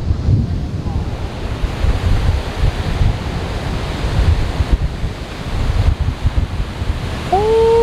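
Rough surf breaking under a pier, with strong wind buffeting the microphone in low rumbling gusts. Near the end, a short tone rises and then holds.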